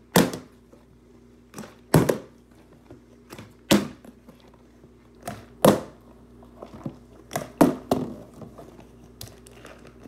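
A partly filled plastic drink bottle being flipped and landing on a hardwood floor: a series of sharp knocks, about eight, a second or two apart, some in quick pairs.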